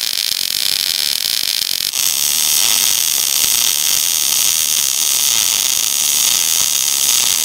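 MIG welding arc in short-circuit transfer on mild steel, crackling steadily. About two seconds in it switches from a long wire stickout to a short one (half an inch or less), and the crackle becomes louder and crisper: the short stickout gives the better, crisper arc.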